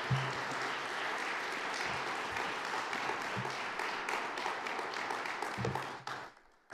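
A small seated audience applauding, a steady patter of clapping with a few low thumps mixed in, that dies away suddenly near the end.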